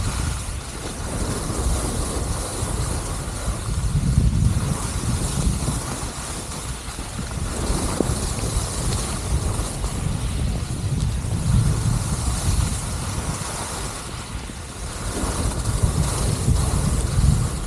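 Wind buffeting the camera microphone during a downhill ski run, a low rumble that swells and fades every few seconds, over the steady hiss of skis sliding on packed snow.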